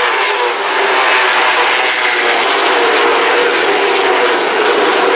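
A pack of Late Model stock cars running together at racing speed, their V8 engines making a loud, steady drone with slight shifts in pitch.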